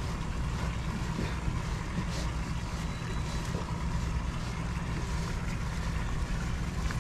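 Steady low hum of boat machinery running at the dock, with a few light scuffs of a dock line being worked on a cleat.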